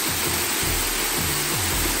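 Waterfall pouring onto rocks: a steady rush of falling water, with an uneven low rumble underneath.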